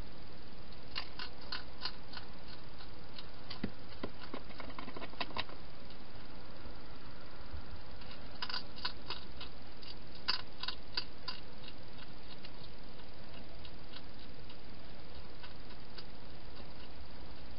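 Wild hedgehog eating from a bowl inside a plastic feeding box: small sharp crunching clicks come in bursts, about a second in, around four to five seconds, and again between eight and eleven seconds, over a steady hiss.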